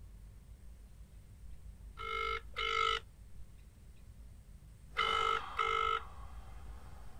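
Telephone double-ring tone, two short rings close together, heard twice about three seconds apart over a low steady hum.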